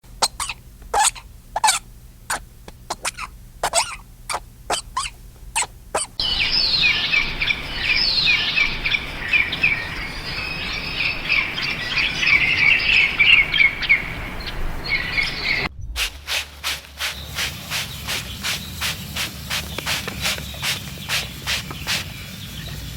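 Birds calling in three separate stretches. First come sharp calls repeated about twice a second, then a dense chorus of high chirping from many birds for about ten seconds, then a regular run of short calls about twice a second.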